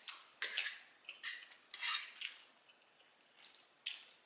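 Metal cutlery scraping and clinking against a dinner plate in short, irregular strokes, about half a dozen in a few seconds, as food is gathered up from the plate.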